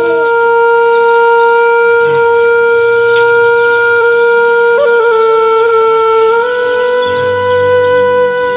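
One long held note from a horn-like wind instrument, steady and loud, with a slight waver about five seconds in and a small step up in pitch near six and a half seconds.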